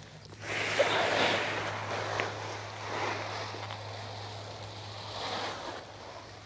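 Ozone paraglider wing rustling and rushing as it is pulled up off the grass and fills with air overhead, in swells that come and go, with wind on the microphone.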